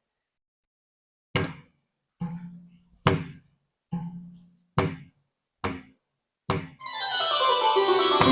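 Yamaha PSR-I510 arranger keyboard playing back a built-in Indian song: seven evenly spaced percussion strokes, a little under one a second. Near the end a full accompaniment of sustained pitched tones swells in.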